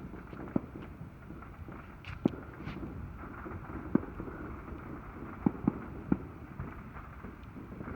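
Distant fireworks popping: about half a dozen sharp, short bangs at irregular intervals, with a few brief hissing streaks, over a steady outdoor hiss.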